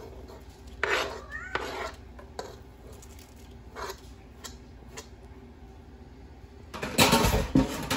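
A cat meowing once, about a second in, with a wavering pitch. Around it come light clicks and scrapes of a fork pushing shredded chicken off a cutting board into a plastic-lined slow cooker, and a louder scraping rustle near the end.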